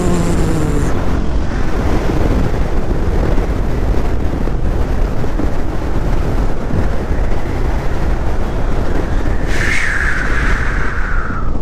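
Motorcycle in motion, heard from the pillion: a steady rush of wind over the microphone with the engine running underneath. A brief higher hiss comes in near the end.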